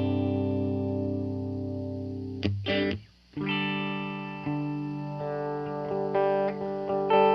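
Electric guitar loop played through an Electro-Harmonix The Worm modulation pedal, its dry and effected signals sent to two amps: sustained ringing chords, a brief break about three seconds in, then a new chord and several plucked notes.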